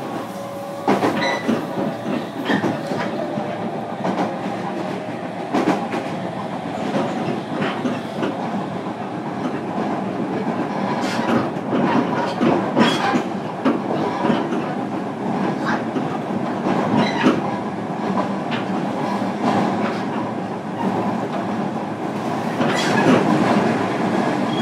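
Running noise heard from inside a JR Kyushu 305 series electric motor car on the move: a continuous rolling rumble with irregular sharp clicks and knocks from the wheels passing over rail joints and track.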